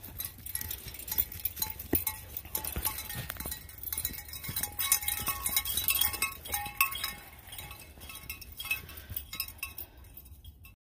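Footsteps crunching and rustling through dry fallen leaves, with light metallic clinking throughout. The sound cuts off suddenly near the end.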